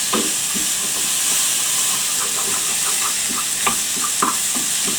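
Mushrooms, onions and chili sizzling in a frying pan with Thai red curry paste, a steady hiss, while a wooden spoon stirs and breaks up the paste with small irregular knocks and scrapes against the pan.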